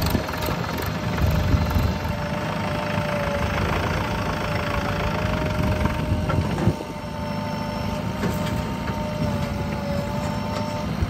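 Diesel engines of a JCB 3DX backhoe loader and a Mahindra Yuvo tractor running side by side, with a steady whine above the engine noise.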